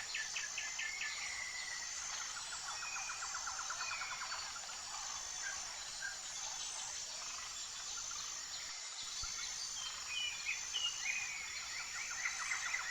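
Birds chirping and giving rapid trills over a steady, high-pitched insect drone. The trills come in two spells, one a few seconds in and another near the end.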